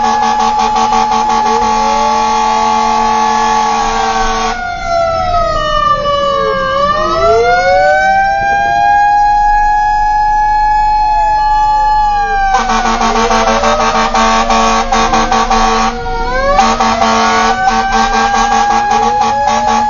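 Fire truck siren wailing, heard from inside the cab, its pitch falling and rising in long sweeps. For the first few seconds, and again from about two-thirds of the way in, a rapid pulsing tone is layered over the wail, with a brief break just after that.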